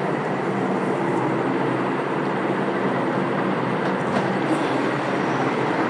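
Steady, even background noise with a faint low hum.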